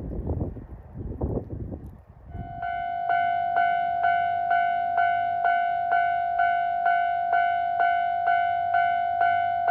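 Gusty wind buffeting the microphone, giving way about two seconds in to a Japanese railway level-crossing warning bell. The bell is a steady high tone, struck again about twice a second.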